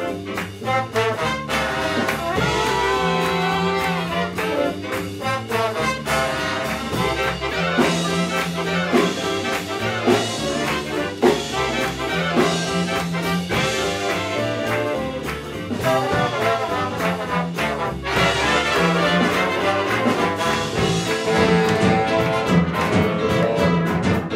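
Jazz big band playing live in full ensemble: saxophone section, trombones and trumpets in swing over double bass and drums, with a low riff repeating every few seconds.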